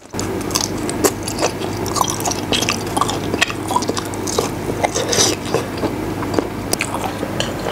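Close-miked chewing of braised meat: wet mouth clicks and smacks at an irregular pace, over a steady low hum.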